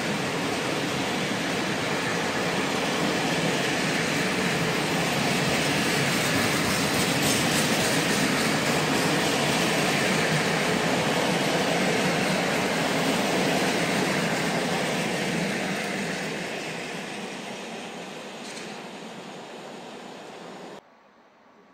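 Freight train of empty flat wagons rolling past at speed: a steady, loud rumble of wheels on rail that fades away over the last several seconds as the end of the train goes by, then cuts off abruptly.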